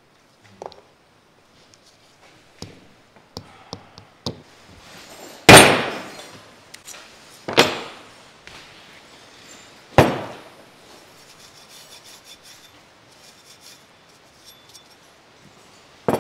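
Three sharp knocks about two seconds apart, the first the loudest, as metal clutch parts are struck on a wooden workbench. Several lighter clicks of parts and tools being handled come before and after them.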